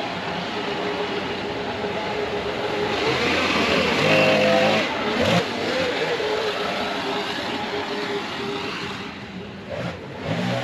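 Gas leaf blower engine running with a steady rushing blast of air, throttled up about four seconds in and eased off briefly near the end.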